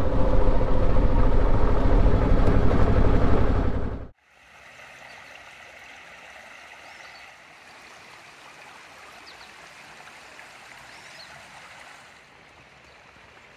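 Suzuki V-Strom 650's V-twin engine running steadily as the motorcycle rides a gravel road, then cut off abruptly about four seconds in. After the cut, a shallow creek flows over rocks at a much lower, even level.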